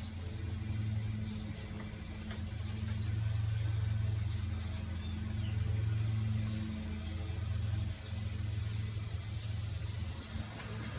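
An engine idling with a steady low hum, its pitch shifting slightly a couple of times.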